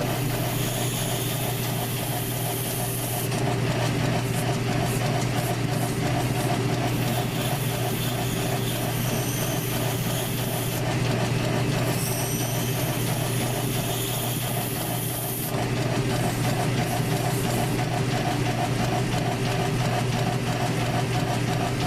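South Bend lathe running with a steady motor hum and an evenly pulsing whir from its drive. Three stretches of high-pitched cutting noise come as the Razor scooter wheel is turned to round off its profile: about 3 s, then 4 s, then 3.5 s long.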